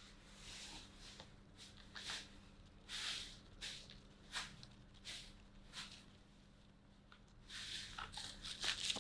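Hands handling an Advan Soulmate laptop and its plastic case as it is being closed up after an SSD and RAM upgrade: a string of faint, short rustles, scrapes and light clicks, busiest near the end.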